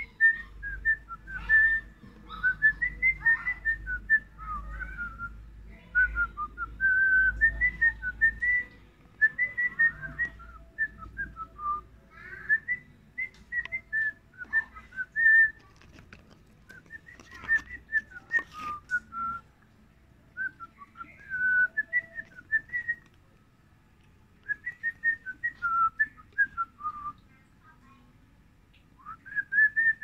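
Rosy-faced (peach-faced) lovebirds chirping and twittering in quick runs of high, gliding notes. The calls come in bouts of a few seconds broken by short pauses.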